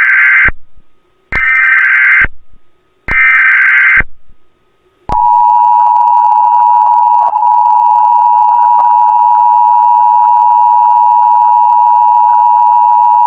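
Emergency Alert System tones: three short bursts of warbling digital data (the SAME header) about a second apart, then a pause and the steady two-tone EAS attention signal held for about eight seconds, announcing an emergency alert.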